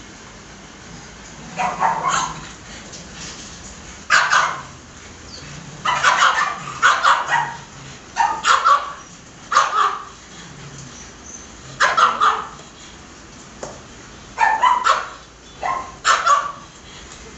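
Dog barking repeatedly in short, separate barks, one every second or two, some coming in quick pairs.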